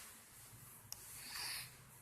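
A sleeping child snoring softly: faint, hissy breaths, one swelling about a second in, with a tiny click just before it.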